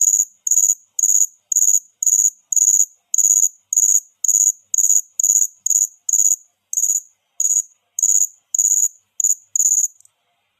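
Cricket chirping: a steady series of short, high-pitched chirps, about two a second, that stops near the end.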